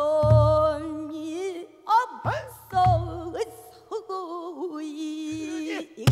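Solo female pansori singing, long held notes that bend and waver with heavy vibrato, accompanied by a buk barrel drum giving a few low strokes beneath the voice and a sharp rim-like stroke near the end.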